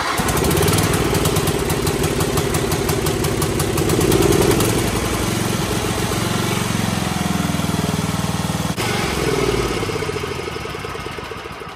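John Deere 111 lawn tractor's Briggs & Stratton 11 horsepower engine starting abruptly and running steadily on a newly replaced fuel filter, fuel lines and spark plug. Its pitch shifts about nine seconds in, and the sound fades away near the end.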